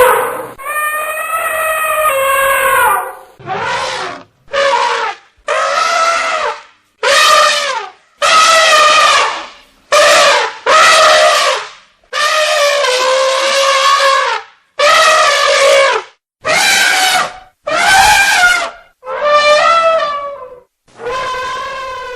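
Elephant trumpeting: a run of about fourteen loud calls, each from half a second to two seconds long with short gaps between them. The first is the longest, and several dip in pitch near their ends.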